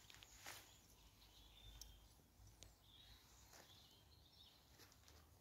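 Near silence: faint outdoor ambience with a few faint bird chirps.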